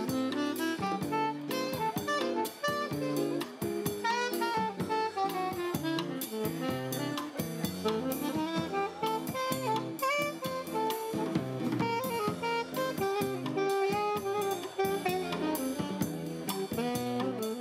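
Live band music with a jazzy feel: a saxophone plays a melody over acoustic guitar, with drums keeping a steady beat.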